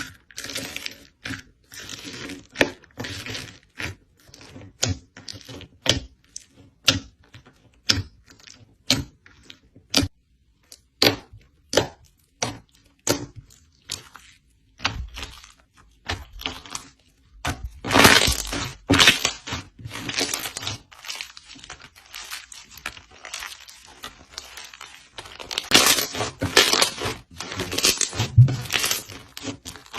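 Slime being worked by hand, giving sharp crackling pops and snaps. Single snaps come about once a second at first, then denser runs of crackling come near the middle and again toward the end.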